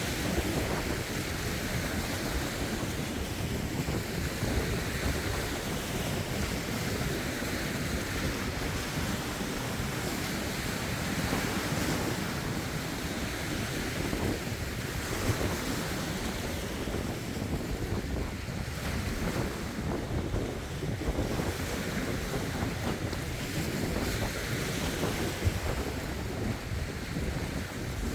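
Lake waves washing and splashing over rocks in a steady, irregular wash, with wind buffeting the phone's microphone.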